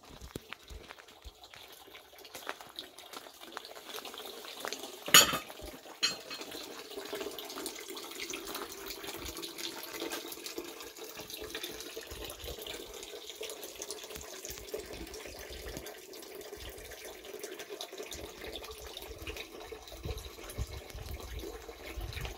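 Thin stream of spring water falling from a spout and splashing steadily onto a corrugated plastic sheet, growing louder over the first few seconds. Two sharp knocks about five and six seconds in.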